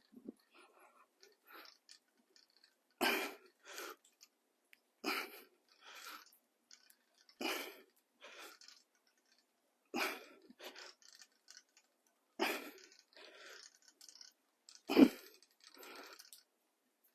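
A person's hard breaths during exercise repetitions, a strong exhale about every two and a half seconds, each followed by a softer breath; the one near the end is the loudest.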